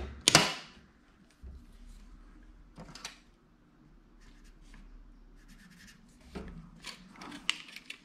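Handling sounds of a tape measure and marker on a thin aluminum sheet panel. There is a short sharp clatter just after the start, then faint scattered ticks and scratches as the panel is measured and marked.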